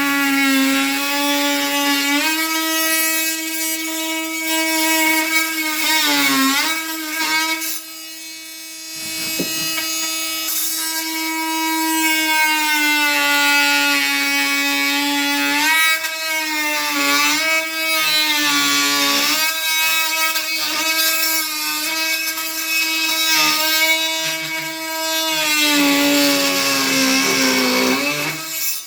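Oscillating multi-tool cutting into a wooden door jamb to undercut it, running with a steady high buzz. The pitch sags briefly when the blade bites harder, about six seconds in and again near the end. It runs lighter for a couple of seconds around eight seconds in.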